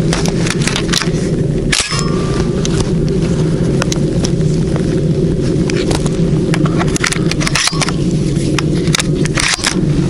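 Footsteps crunching and swishing through frosty dry grass, a string of irregular crackles, over a loud steady low rumble on the microphone.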